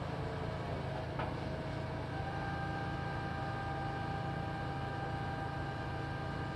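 Construction machine engine running steadily with a low hum; a faint higher whine joins about two seconds in.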